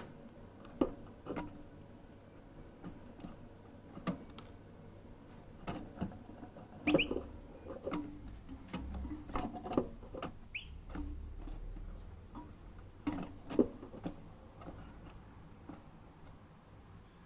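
A young European goldfinch moving about its wire cage: scattered light taps and clicks on the perches and bars, with two brief faint chirps in the middle.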